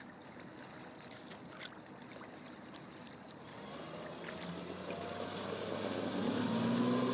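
Outboard motor of a Sibir 460 motorboat running under power: faint at first, then from about halfway growing steadily louder, its engine note rising in pitch as the boat speeds up.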